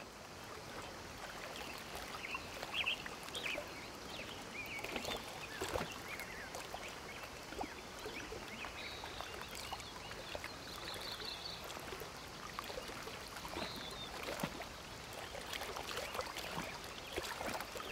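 Faint river water lapping and trickling at a reedy bank, with scattered small splashes and a few short bird chirps.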